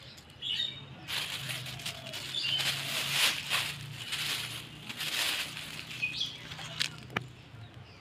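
Thin clear plastic garbage bag crinkling and rustling in irregular bursts as a hand grips and shakes it, with a sharp click near the end.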